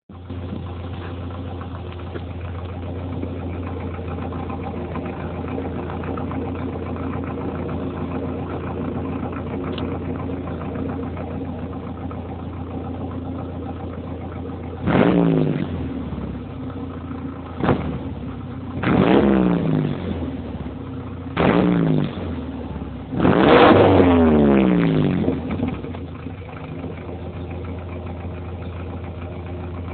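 1990 Volkswagen Taro pickup engine (a rebadged Toyota Hilux) running through exhaust stacks. It idles steadily for about half the time, then is revved in five quick blips, each falling back to idle. The last blip is the longest and comes about three quarters of the way in.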